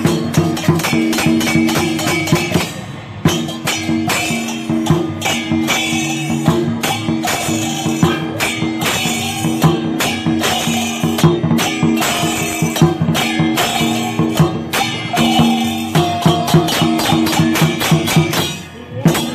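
Chinese dragon dance percussion: clashing cymbals and drum beating fast and loud, with a steady ringing tone underneath, breaking off briefly about three seconds in and again near the end.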